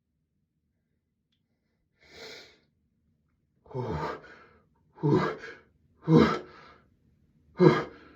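A person's gasping breaths building up to a sneeze: a faint breath about two seconds in, then four short gasps roughly a second apart, each louder than the last.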